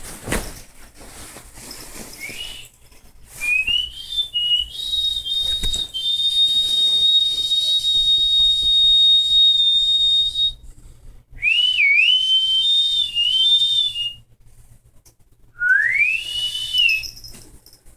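Someone whistling high notes: a few short rising notes, then one long, almost steady note held for about six seconds, a wavering phrase, and a slide upward near the end.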